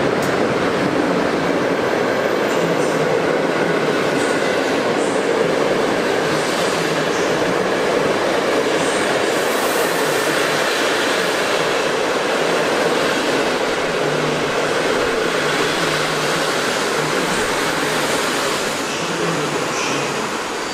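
Passenger train hauled by an EU44 Husarz electric locomotive (Siemens EuroSprinter) rolling past along the platform: the steady rumble and hiss of coach wheels on the rails, fading about 19 seconds in as the last coaches go by.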